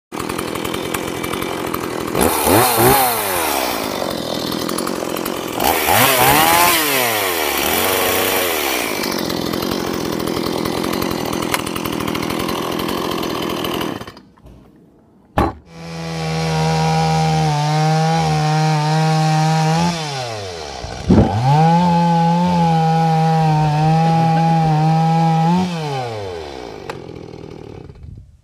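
Stihl MS 170 two-stroke chainsaw running, revving up and down twice while cutting wood. It stops about halfway, then runs again at high revs with a steady pitch, rising once and falling away near the end.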